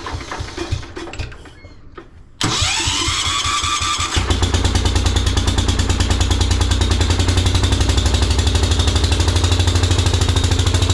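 Freshly rebuilt 10 hp Kohler K241 single-cylinder engine on a 1973 Wheel Horse tractor being cranked over. A first cranking dies away, the starter spins it again about two and a half seconds in, and about four seconds in the engine catches and runs steadily.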